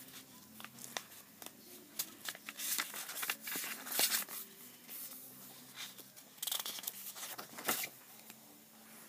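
Paper pages of a paperback book being handled and turned: rustling and flicking in two louder spells, around three to four seconds in and again about a second before the end, with small handling clicks in between.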